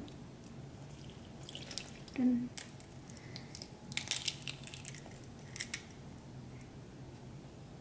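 Small kitchen sounds of mixing batter in a stainless steel bowl: water poured from a glass measuring cup onto flour, a brief low ring about two seconds in, then a few sharp clicks and taps as an egg is cracked and broken open over the bowl.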